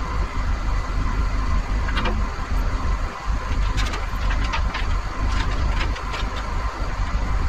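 Caterpillar 938G wheel loader's six-cylinder diesel engine running steadily at idle, heard from inside the cab, with a few light clicks and knocks about two seconds in and again in the middle.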